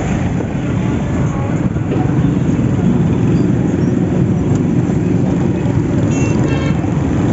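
Motorcycle on the move in road traffic: a steady rush of engine and wind noise, heaviest in the low range. A brief high-pitched tone sounds about six seconds in.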